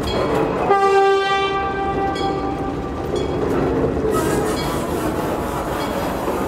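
A small shunting locomotive sounds its horn in one steady blast of about two seconds, starting about a second in, over the low rumble of the locomotive moving slowly along the track.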